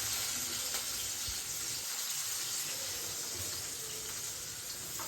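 Onion and chillies frying in hot oil in a pan, sizzling steadily.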